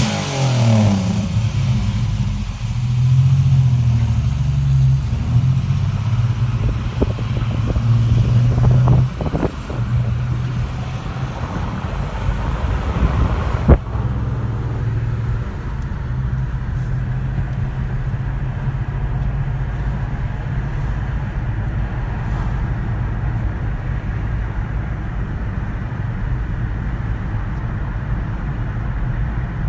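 An old car's engine running, revved in a few short blips during the first half, then a sharp click about fourteen seconds in, after which it settles to a steady idle.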